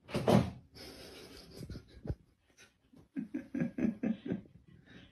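A sudden loud breathy outburst, then a person laughing in a quick run of about six short bursts about three seconds in.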